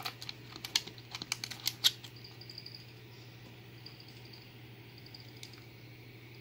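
A quick run of small metallic clicks and ticks from a brass lock cylinder and its pins being handled with a pick, the loudest near two seconds in. After that only a faint steady hum remains.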